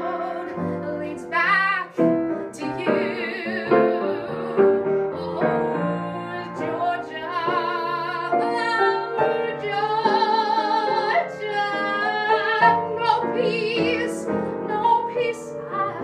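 A woman singing in operatic style with a wide vibrato, accompanied by piano.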